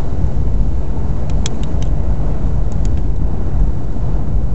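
Steady low road rumble of a van driving, heard from inside the cabin, with a few faint clicks about a second and a half in and again near three seconds.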